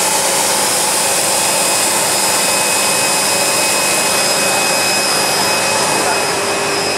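Twin-screw extruder and strand pelletizer line running: a steady, loud blowing-air noise with a few constant high whining tones over it.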